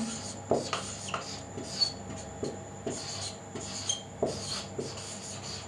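Marker pen writing on a whiteboard: short, irregular strokes of scratching and rubbing, with a few brief high squeaks as the letters are drawn.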